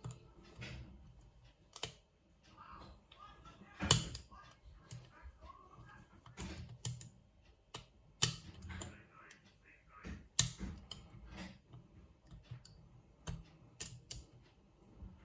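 Irregular small metallic clicks and taps of lock picks and a tension wrench working in a padlock, with three sharper, louder clicks spread through.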